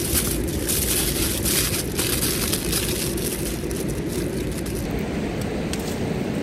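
Aluminium foil crinkling as it is wrapped around a sweet potato, in sharp bursts over the first two or three seconds and then dying away, over a steady low rumble. Near the end there are a few faint light ticks.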